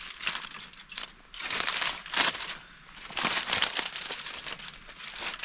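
Aluminium foil crinkling and crackling as its layers are peeled open from around a package baked in campfire coals, in two main bouts of crinkling.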